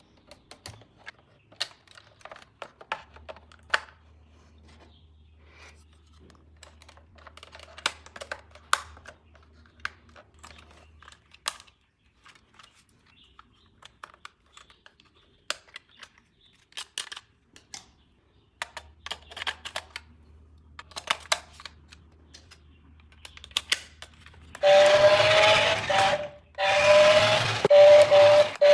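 Scattered light clicks and rattles of plastic being handled, then near the end a toy remote-control car's small electric motor starts whirring loudly with a steady whine, cutting out briefly twice.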